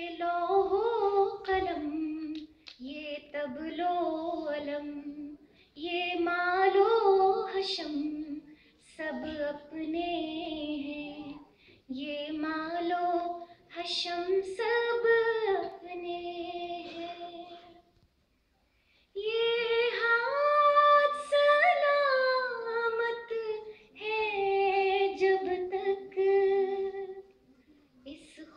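A woman singing a ghazal solo and unaccompanied, in sustained melodic phrases with short breaks for breath, and one longer pause about two-thirds of the way through.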